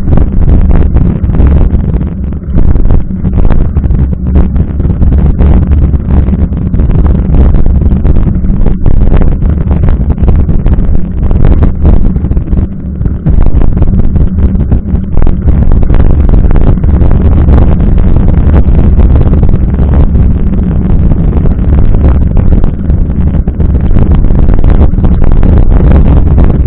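Wind buffeting the microphone of a camera mounted on a mountain bike's front fork while riding, heard as a loud, steady rumble. Through it come the hiss of tyres on wet pavement and frequent small knocks and rattles as the bike rolls over the road.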